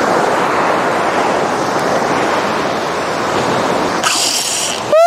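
Surf washing up on a sandy beach, with wind on the microphone. About four seconds in comes a short high hiss, then, right at the end, a brief loud tone that rises and falls in pitch.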